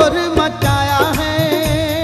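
Sufi dhamal song: a man's voice holds a long, wavering note over a steady drum beat.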